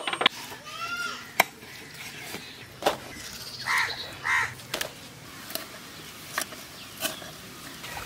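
Sharp clicks and snaps scattered through, from sheep meat and bone being cut on a bonti, a curved blade fixed upright on a foot-held base. A bird gives a short chirping call about a second in, and a crow caws twice, about half a second apart, near the middle.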